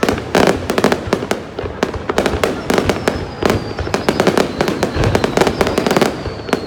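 Aerial firework shells bursting overhead in rapid succession, a dense string of loud bangs and crackles. A faint high whistle slowly falls in pitch through the second half.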